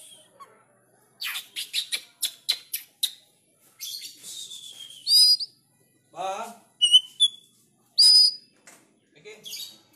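Oriental magpie-robin singing sharp, varied song: a quick run of crisp click-like notes, then harsh buzzy phrases and clear high whistles that glide, in short bursts with brief gaps.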